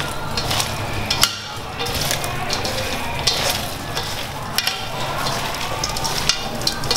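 Shredded lotus stems, pork and chicken tossed by hand in a stainless steel mixing bowl: a steady wet, crisp rustling, with a few sharp clicks against the bowl.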